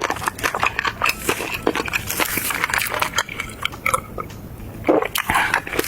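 Close-miked mouth sounds of someone eating: chewing with wet smacking and many rapid, irregular clicks, a little louder near the end.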